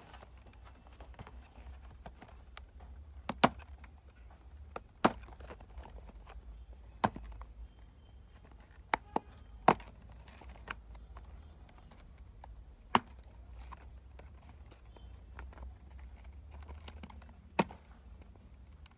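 Sharp clicks and taps from hands handling a cardboard earbuds box, about eight scattered through, over a low steady hum.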